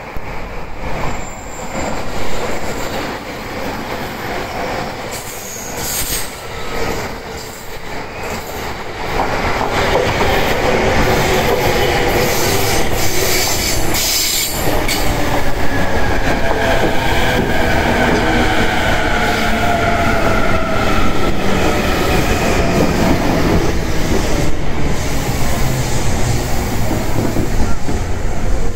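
JR East Tokaido Line electric commuter train (E231/E233-series stock) running into the station at speed, a quieter approach swelling into a loud steady rush of wheels on rail about nine seconds in. Partway through, a whine falls steadily in pitch as the train slows for its stop.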